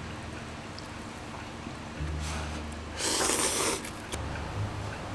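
A person slurping ramen noodles off chopsticks: a short, soft slurp a little after two seconds in, then a louder, longer slurp at about three seconds.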